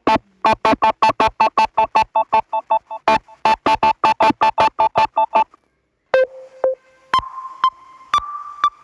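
Samsung Galaxy A50s ringtone or alarm tone: a fast run of short synthesized keyboard-like notes, about five a second, for roughly five seconds. After a brief gap, a different tone with longer held notes begins about six seconds in.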